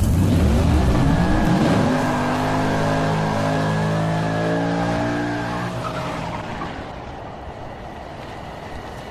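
Car engine revving hard with tyres squealing in a burnout. The engine pitch climbs over the first two seconds and holds, then the sound fades away from about five seconds in.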